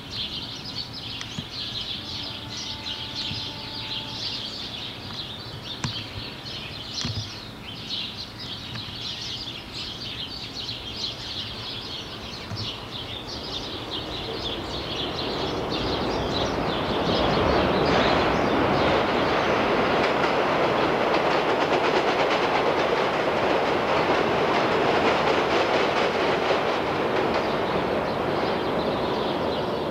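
Subway train on an elevated steel structure approaching and running past. Its noise rises from about halfway in and stays loud near the end.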